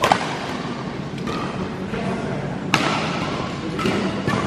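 Badminton rackets striking a shuttlecock during a rally: three sharp cracks, at the start, a little under three seconds in, and near the end, each ringing briefly in a large sports hall.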